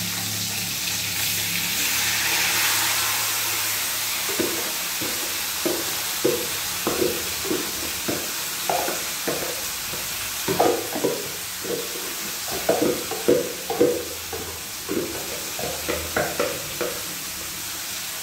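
Marinated chicken and galangal spice paste sizzling in hot oil in a wok, the hiss strongest at first. From about four seconds in, many short knocks and scrapes of the utensils against the pan as the chicken is moved about.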